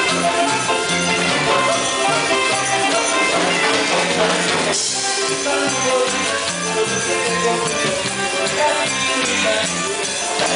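Live band playing Latin dance music: drum kit and hand percussion keeping a steady beat under electric bass, keyboard and alto saxophone. A cymbal crash about five seconds in.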